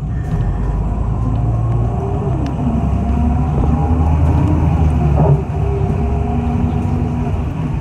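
City bus running, heard from on board: a deep, steady engine rumble with a faint whine that rises and falls in pitch. The sound grows louder until a sudden drop about five seconds in.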